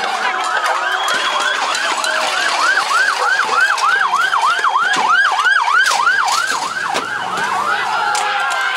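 Siren sounding in a fast yelp, about three rising-and-falling sweeps a second, with other wavering siren tones overlapping. The pattern breaks up into a slower, tangled wail near the end.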